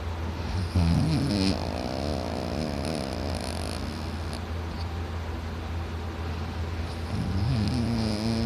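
A man snoring loudly: drawn-out snores with a wavering pitch and breathy hiss, over a steady low hum.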